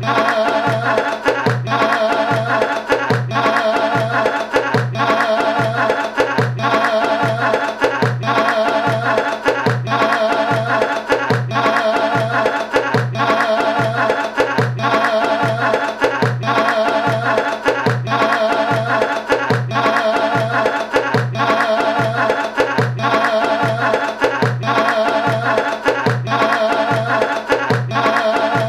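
Music with a steady drum beat, about two beats a second, under a wavering melody that repeats in short phrases.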